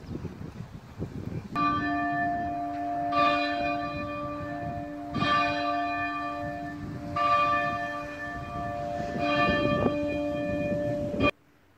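Orthodox church bell tolling, struck about every two seconds and ringing on between strokes, five strokes in all; the ringing cuts off suddenly near the end. Wind buffets the microphone before the first stroke.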